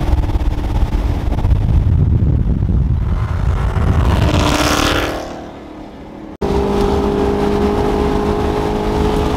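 Chevrolet Camaro SS V8 engine heard from inside the cabin at highway speed, loud with road noise. About four to five seconds in, a rushing sound swells and fades as the level drops; then, after a sudden cut, the engine runs steadily at cruise.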